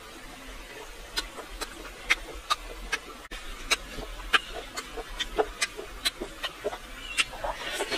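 Close-up eating sounds of grilled river snails being eaten from a skewer: irregular sharp lip smacks, sucks and chewing clicks, starting about a second in and coming two or three a second.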